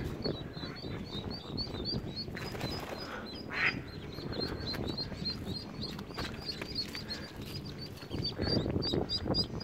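Mallard ducklings peeping constantly, many short high peeps several a second. A single louder, lower call stands out about three and a half seconds in.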